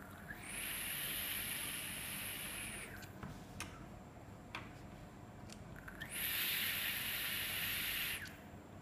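Two pulls of about two and a half seconds each on an Omega rebuildable dripping atomizer: the freshly built coil fires and the e-liquid sizzles in a steady hiss. A few light clicks come in the gap between the pulls.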